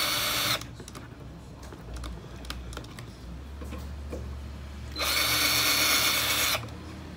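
20-volt cordless drill boring into a particleboard panel in two runs: the motor whine stops about half a second in, then starts again about five seconds in for about a second and a half. Faint clicks in the pause between.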